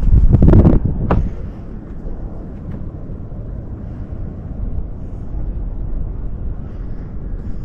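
Wind buffeting the camera microphone: loud gusts in the first second or so, then a steadier low rumble.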